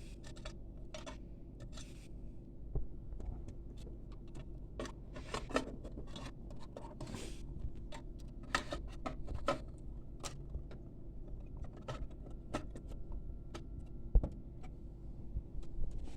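Irregular clicks, taps and small rattles of hardware being handled on a workbench, a car head unit and its connectors being fitted into a test rig, over a steady low electrical hum. A sharper knock comes about 14 seconds in, and a faint steady tone runs for several seconds in the second half.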